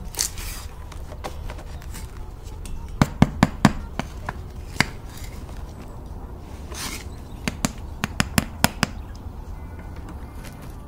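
Sharp knocks and taps as a baked sourdough loaf is handled in and lifted out of a cast-iron Dutch oven: a quick cluster of about four a little after three seconds in, a single one near five seconds, and a run of five or six later on.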